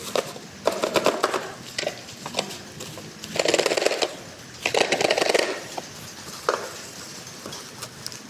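Hands unpacking a toy truck set: bursts of packaging rustling and small sharp clicks of plastic parts being handled.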